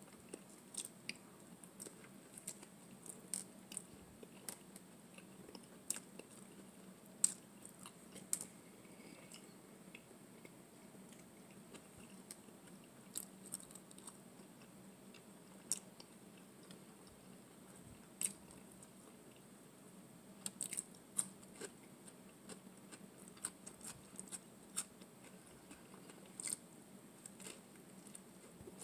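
Faint chewing and mouth sounds of a person eating spaghetti and garlic bread, with many short sharp smacks and clicks at irregular intervals.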